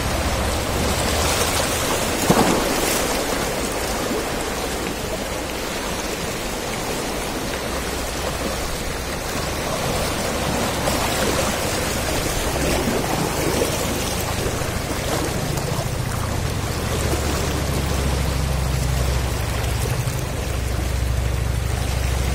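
Small sea waves washing and splashing over shoreline rocks, a steady noisy wash with a low rumble underneath and one brief sharp splash or knock about two seconds in.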